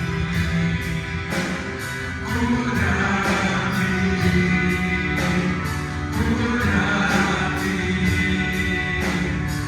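Church worship band playing a gospel song with singing, over a steady beat with a cymbal tick about three times a second.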